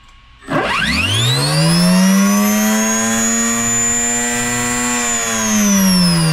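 RC electric motor on a dynamometer spinning up with a whine that rises steeply in pitch, holds high and steady, then falls as it winds down from about five seconds in.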